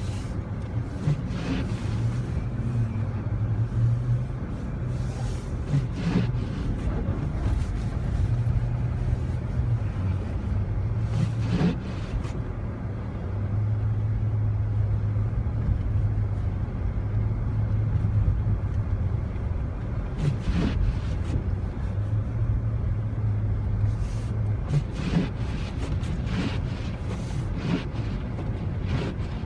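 A Jeep Commander driving through snow, heard from inside the cabin: a steady low engine and road drone, with scattered short knocks and thumps.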